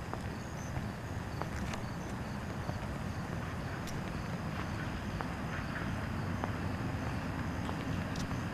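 Crickets chirping in short, high, irregularly repeating chirps over a steady low rumble, with a few faint clicks.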